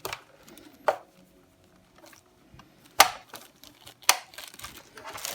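A few sharp clicks and knocks, irregularly spaced about a second apart, from handling a laptop's plastic case and tools.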